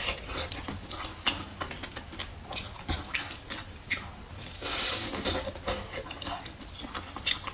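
Close-miked eating: biting into and chewing a braised chicken drumstick, with many short wet mouth clicks and smacks and a denser stretch of chewing about five seconds in.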